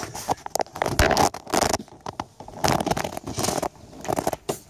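Irregular scrapes, scuffs and rustles from a phone being handled and rubbed against clothing and the boat while a person climbs out of a small sailboat's cabin.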